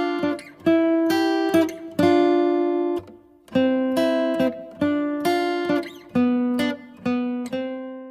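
Acoustic guitar intro music: strummed and picked chords struck one after another, each ringing and dying away before the next.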